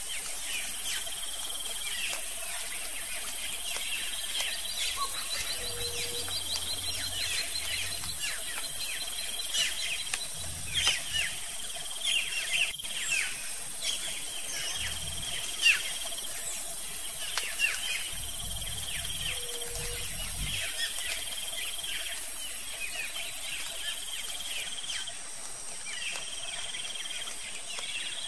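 Natural outdoor ambience: a steady high-pitched insect drone with many short, falling bird calls over it, busiest in the middle.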